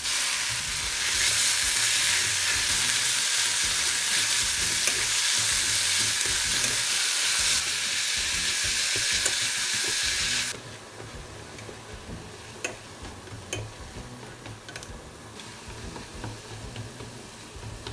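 Ground pork frying in sesame oil with scallion, garlic and ginger in a stainless steel pot, sizzling loudly as it is stirred and broken up with chopsticks. About ten seconds in the sizzle drops suddenly to a much quieter hiss, with light clicks of the chopsticks against the pot.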